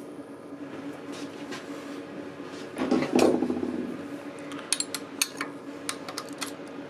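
Steel spanner clinking on the idler pulley's nut and bracket as the nut is nipped up: a louder clunk and rustle about three seconds in, then a run of short, sharp metallic clicks.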